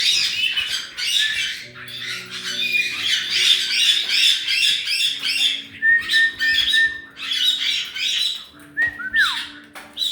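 A flock of caique parrots squawking and chattering in rapid, overlapping high calls, with a few held whistles and one falling whistle about nine seconds in.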